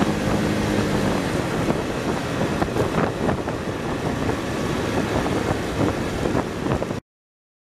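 Wind buffeting the microphone of a vehicle moving at speed, with rushing road noise and scattered crackles. A steady engine hum underneath fades out about a second in. The sound cuts off abruptly near the end.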